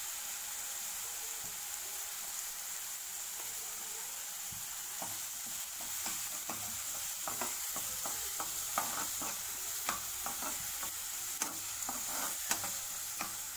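Coriander and green chilli paste with peanuts frying in oil in a non-stick kadai, a steady sizzle, while a spatula scrapes and clicks against the pan as it is stirred, more often from about five seconds in.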